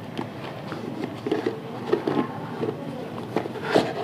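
Handling noise: scattered light clicks and knocks as the plastic steam vaporizer is handled and shown.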